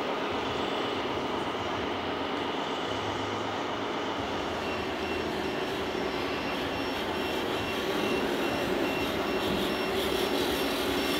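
Radio-controlled scale trucks running, a steady mechanical vehicle noise over the background of a busy hall. A repeating electronic beep starts about four and a half seconds in and keeps going.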